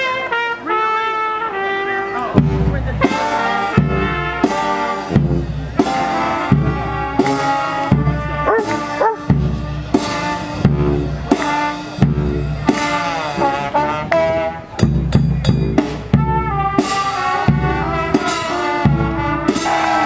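Brass band playing live: trumpets and trombones hold loud chords over a sousaphone bass line. A bass drum comes in with a steady beat about two seconds in.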